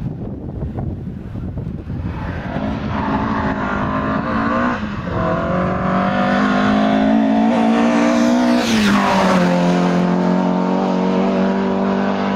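Ford Escort Mk1 rally car's four-cylinder engine at full throttle, building as the car approaches, with a brief break in the note about five seconds in. About nine seconds in the pitch falls sharply as it passes, then it holds a steady lower note as it pulls away.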